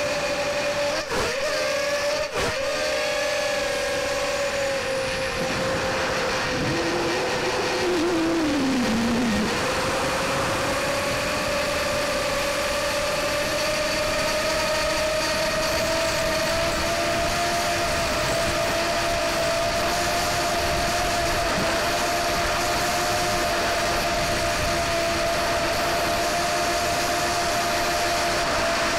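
Small electric motor and propeller of an MB Epic Mini RC plane, heard through its onboard camera: a steady, even tone with two short dips about one and two seconds in. A second tone bends up and then down around seven to nine seconds in.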